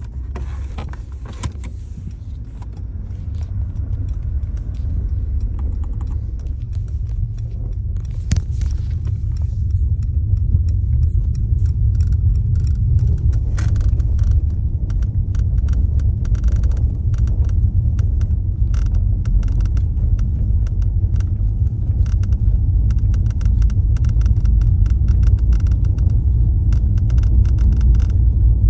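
Mercedes-Benz S63 AMG driving, with a steady low road rumble that grows louder over the first third. Quick rattling clicks run over it, coming thick from about halfway; the owner traces the rattle to the front axle and the dashboard.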